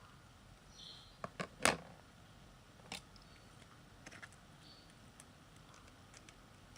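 Plastic Lego bricks clicking and knocking as they are handled and pressed together: a few sharp clicks about a second and a half in, the loudest just after, another about three seconds in, and a few faint ones later.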